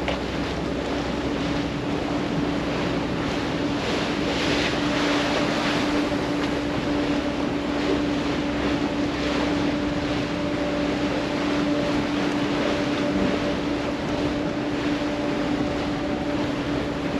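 Engine of a wooden motorboat water taxi running under way with a steady drone, over the rush of water along the hull and wind on the microphone.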